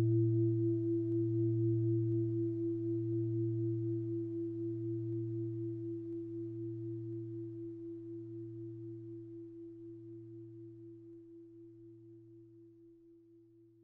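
A large bronze temple bell ringing out after being struck: a low, gently pulsing hum with a clearer note above it that fades slowly away and dies out near the end.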